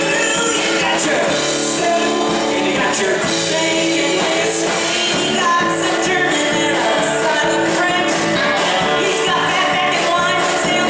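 Live country-rock band playing with a man and a woman singing together, over strummed acoustic guitar and electric guitar.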